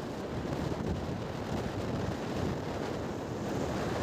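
Wind buffeting the microphone as it moves along the road, a steady uneven low rumble.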